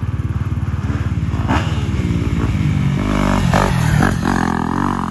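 Yamaha YZ250F motocross bike's 250 cc four-stroke single-cylinder engine, pulling at low revs and then revving higher as the bike rides up and passes close by, loudest about four seconds in.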